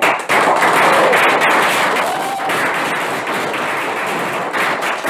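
Audience applauding, starting at once and slowly dying away towards the end.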